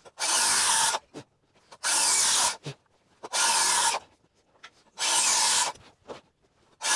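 Five long strokes of a hand tool rubbing on wood, evenly spaced about a second and a half apart, each lasting a little under a second.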